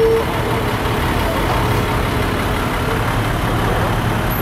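A fire engine's heavy engine running steadily with a low rumble as the truck rolls slowly past close by. A short steady tone cuts off just as it begins.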